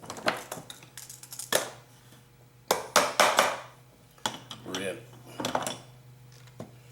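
Irregular small clicks, taps and scrapes of hand-handling clock parts as a cuckoo clock's bellows are fitted back into the wooden case and their lift-arm wires hooked in, with a dense cluster of clicks about three seconds in.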